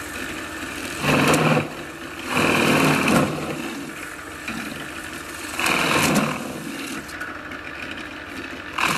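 Drill press running with a steady motor hum, its bit boring through the pages of an art catalogue. The cutting gets louder four times, for under a second each time, as the bit is fed down into the paper.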